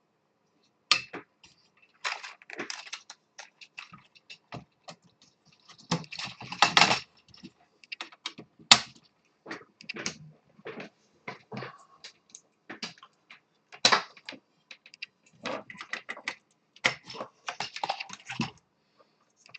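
Irregular clicks, knocks and short rattles of plastic parts being handled as the Atari 1200XL's keyboard and case are put back together.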